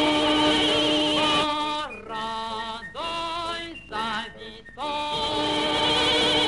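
Film soundtrack music: singing with long, wavering held notes over instrumental accompaniment. It comes in several short phrases broken by brief pauses, fullest at the start and again near the end.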